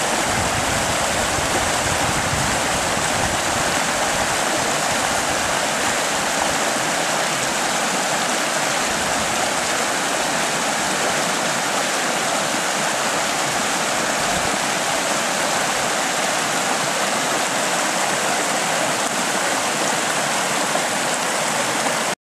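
Floodwater rushing in a steady, loud torrent, which cuts off suddenly near the end.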